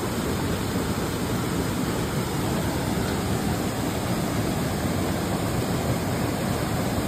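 Waterfall pouring steadily: an even, unbroken rush of falling water heard close up.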